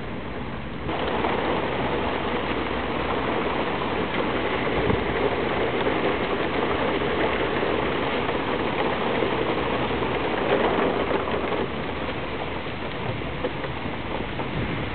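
Steady rain falling, louder from about a second in and easing slightly near the end.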